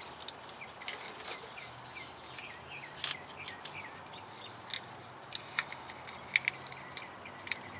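Small birds chirping in short, falling calls, over scattered sharp clicks and light rustling from hands working wiring and plastic tubing.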